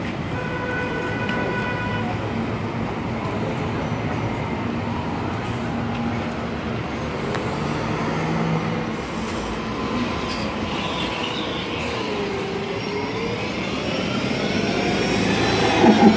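Articulated city buses passing close as they turn and pull away, engines running under a steady street-traffic noise. Transmission and drive whines rise in pitch toward the end as a bus accelerates, and it gets louder near the end as the bus passes right by.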